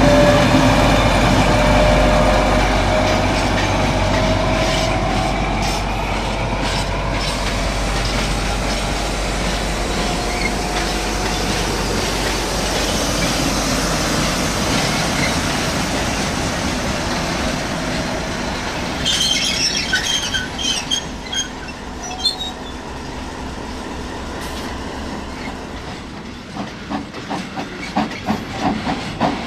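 O scale model trains running on the layout: a steady rolling rumble of wagon wheels on the track, with a squeal that slowly rises in pitch in the first few seconds and a spell of clicking about twenty seconds in. Near the end a steady rhythm of steam-locomotive chuffs begins as the steam engine approaches.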